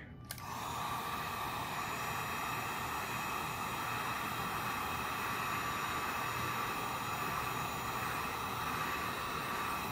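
Handheld electric heat gun blowing hot air: a steady rush of fan and air with a faint constant whine. It comes on a moment after the start and holds level throughout.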